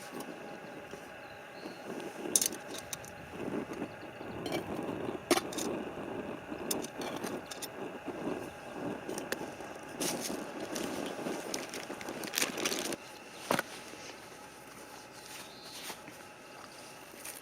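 Close handling noises: uneven rustling with scattered sharp clicks and knocks, the sharpest about two, five and thirteen seconds in.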